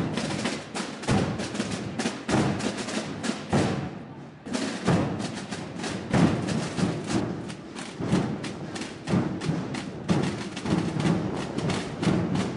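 A massed corps of bombos (large bass drums) and tambores (snare drums) playing while marching: dense, rapid drumming with deep bass-drum thuds under the snare strokes, easing off briefly about four seconds in before coming back in full.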